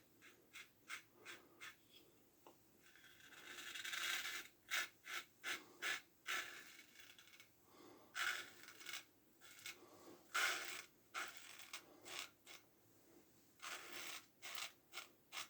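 Single-edge safety razor (1907 Ever-Ready) scraping through lather and stubble in a run of short, faint strokes, each a brief rasp, with a longer scrape about four seconds in.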